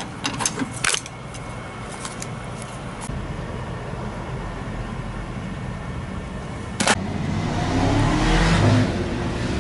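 A road vehicle passing, its engine rumble and rushing tyre noise swelling up from about seven seconds in and peaking near the end. Before that come a few light clicks in the first second and a single sharp click just before the swell.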